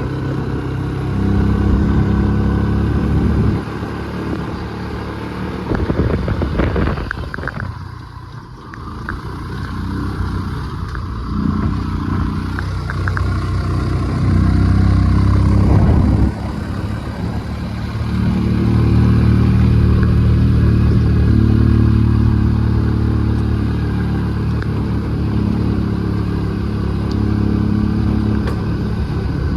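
Vehicle engine running on an off-road track, its note rising and falling as the throttle changes, with a brief drop in level about eight seconds in.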